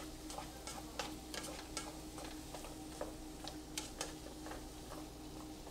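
A spatula stirring cubed pumpkin with onion and garlic in a frying pan: irregular light clicks and scrapes against the pan, a couple or so a second, over a faint sizzle of the pieces sautéing. A faint steady hum runs underneath.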